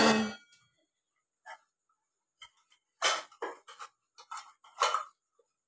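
Stainless steel kitchen vessels clinking and knocking together as they are handled: a clatter at the start, two faint ticks, then a run of short metallic knocks between about three and five seconds in.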